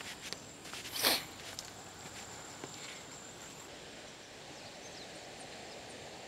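Footsteps and rustling through riverbank grass, with one louder brush about a second in and a few light clicks, over faint steady outdoor background noise. A thin high steady tone stops a little past halfway.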